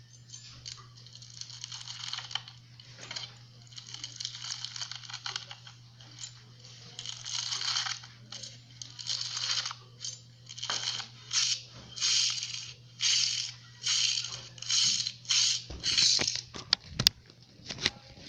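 Slime being squeezed and kneaded by hand, crackling in short noisy bursts that settle into a regular run of about one and a half a second in the second half, with a few sharp clicks near the end. A steady low hum runs underneath.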